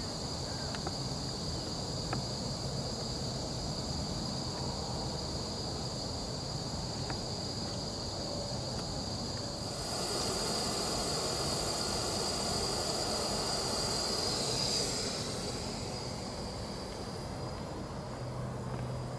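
Outdoor insect chorus: a steady, high-pitched trilling that does not let up. About halfway through, a louder hiss, like wind, rises over it for several seconds and then fades.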